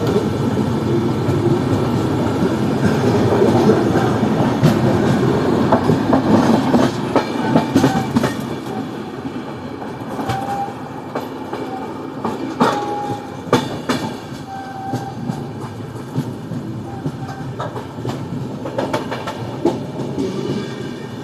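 Train wheels clattering over rail joints and points, with many sharp clacks and a few short squeals through the middle; the sound eases after about eight seconds.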